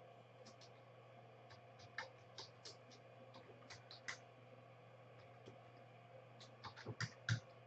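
Faint, scattered clicks of a computer keyboard and mouse, with a quicker run of louder clicks near the end.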